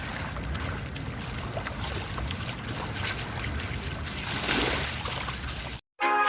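Sea wind buffeting the microphone in a steady rumbling rush, with water sounds underneath. It cuts off abruptly near the end and music starts.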